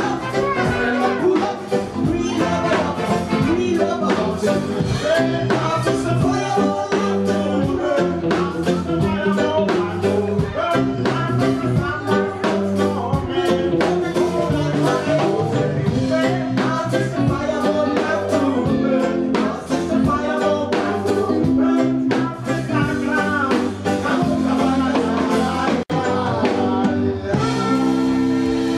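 Live band music with a singer's voice over bass, keyboards and drums, heard through the room.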